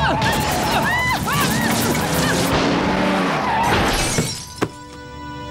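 A car crash sound effect: a runaway car that could not be stopped slams into a roadside wall with shattering glass, and screams are heard over the first second or so. Dramatic music comes in about four seconds in.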